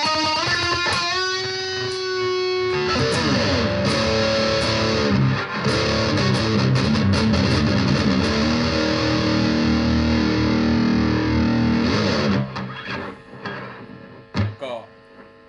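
BC Rich Virgin VG1 electric guitar played through the distortion channel of a Roland Cube Lite practice amp. It plays a lead phrase with string bends, then a dense low riff, and stops about twelve seconds in.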